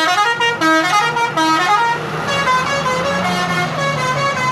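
Bus telolet horn, a multi-note musical horn, playing the Alzifa V3 tune: short, bright notes stepping up and down in quick succession, then a second run of notes over a steady low hum about two seconds in.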